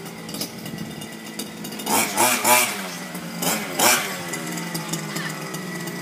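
A petrol remote-control car's small engine running at a steady idle, revved up twice, about two and four seconds in, its pitch rising and falling back each time.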